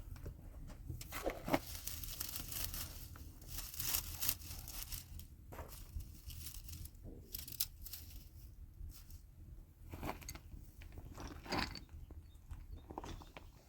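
Irregular crunching and rustling, with scattered sharp clicks, over a steady low rumble.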